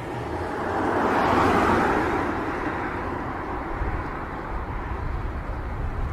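A road vehicle passing close by: its noise swells to a peak between one and two seconds in, then fades away, over a low background rumble of traffic.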